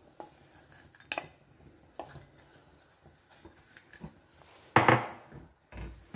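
Light knocks and clinks as lumps of jaggery are dropped into water in an aluminium kadhai and utensils are handled, with a much louder sharp knock that rings briefly about five seconds in.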